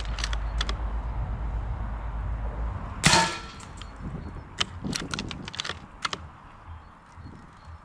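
A single shot from a Rossi bolt-action .22 Long Rifle firing CCI subsonic ammunition, about three seconds in, together with the bullet striking a steel plate. A few light clicks follow over the next few seconds.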